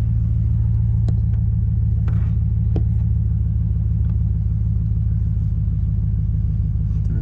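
Engine idling steadily with a low, even rumble, freshly restarted after an oil change, running on new oil. A few faint clicks sound over it.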